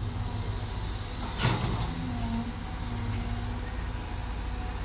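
Cat hydraulic excavator's diesel engine running steadily under load as it digs, with one short, sharp, loud noise about a second and a half in.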